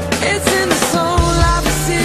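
Background music: a rock-style song.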